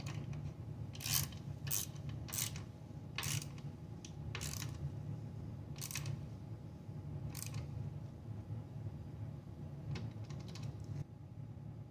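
Hand ratcheting driver with a Torx bit clicking in short bursts as it tightens the skid plate's bolts: about seven bursts spaced roughly a second apart, then a few fainter clicks near the end.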